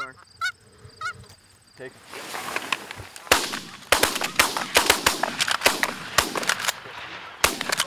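Canada geese honking a few times as they come in, the honking thickening into a din. From about three seconds in, several hunters' shotguns fire a rapid volley of many shots.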